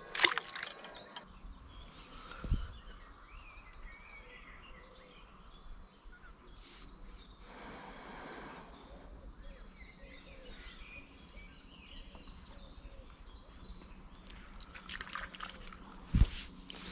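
Several birds singing and chirping, short warbling phrases one after another. There are soft knocks just after the start and about two and a half seconds in, and one sharp knock near the end.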